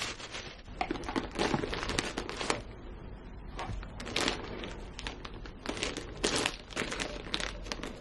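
Clear plastic sleeve and tissue paper crinkling in irregular crackles as hands unwrap a planner cover and lift it out of its box.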